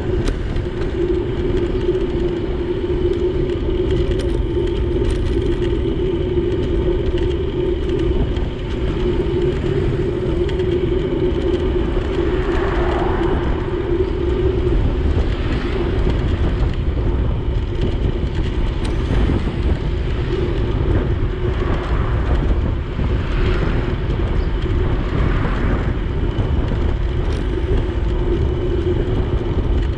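Steady low rumble of wind and road noise while riding along a street, with a constant hum underneath. A few brief swells rise over it about halfway through and again later.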